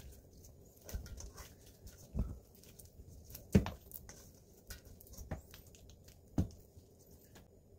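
Silicone spatula scraping creamed butter around a stainless steel mixing bowl, with soft irregular knocks against the bowl, the loudest about three and a half seconds in.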